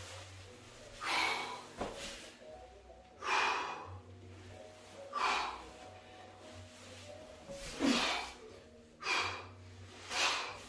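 A man's heavy, forceful breathing while heaving a 100 lb sandbag to his shoulder: six loud puffs of breath, roughly one every two seconds, one with each lift and set-down.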